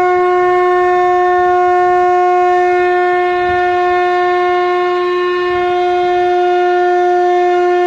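One long, steady horn-like note held at a single pitch, loud and unbroken.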